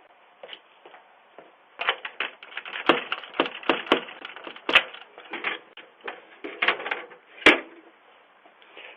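Irregular clicking and crackling, thin-sounding as if through a doorbell camera's microphone. It is densest from about two to five seconds in, with a single sharp crack about seven and a half seconds in.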